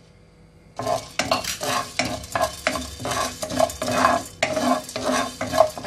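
Black peppercorns being stirred with a silicone spatula in a dry, hot nonstick pan: quick scraping and rattling strokes, about three a second, starting about a second in.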